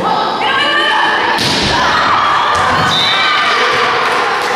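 Indoor volleyball rally in a gym, players and spectators shouting, with one loud thud about a second and a half in.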